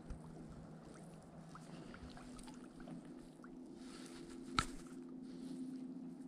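Steady low hum of a boat motor running on the lake, with one sharp click about four and a half seconds in.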